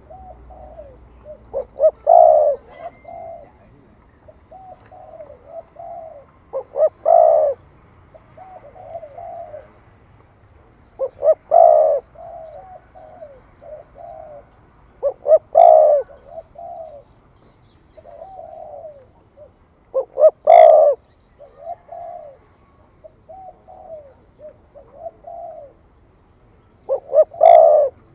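Spotted dove cooing: a loud phrase of a few short notes leading into a strong coo, repeated about every four to five seconds, with softer coos in between.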